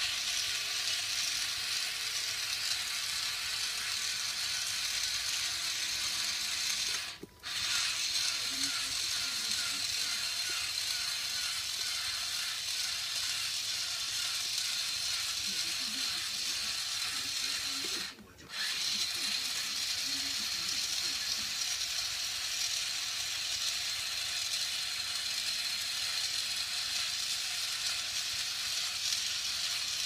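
Toy gearbox motor of a Zoids Death Stinger scorpion model whirring and clicking steadily as it walks, driven from a wired remote control. The motor cuts out briefly twice, about a quarter of the way in and again past the middle.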